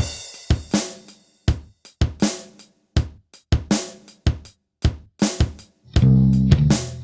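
Background music: a drum kit playing a beat with cymbal crashes, joined by bass guitar about six seconds in.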